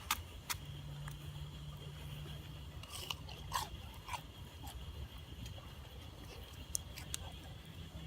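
Open wood campfire crackling, with sparse sharp pops at irregular intervals over a faint steady high-pitched background hum.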